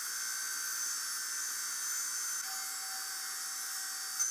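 Steady hiss with a thin, high, steady whine; a fainter lower tone comes in about halfway through.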